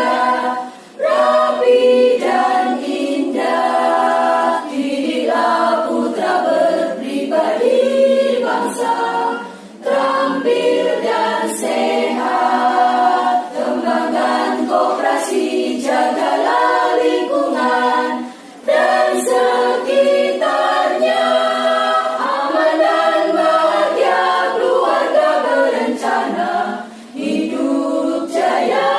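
Women's choir singing an Indonesian march, with short breaks between phrases about every eight to nine seconds.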